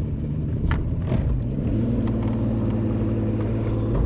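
Bass boat's outboard motor idling steadily, its pitch stepping up slightly about two seconds in, with a couple of light knocks in the first second.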